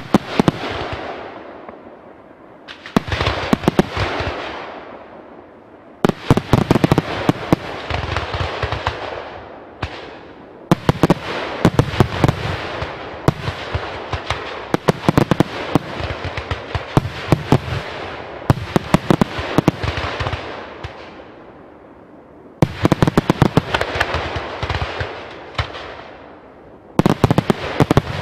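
Fireworks display: waves of rapid bangs and crackling shells, a new volley starting every few seconds and each trailing off into crackle.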